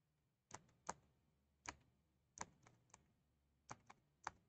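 Faint clicks of computer keyboard keys being pressed, about nine in irregular succession, some in quick pairs.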